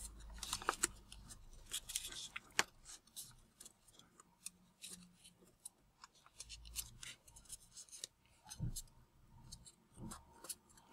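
Origami paper being folded and creased by hand: a string of small, crisp paper crackles and clicks, faint, with a few soft low thuds of fingers pressing the paper down on the table.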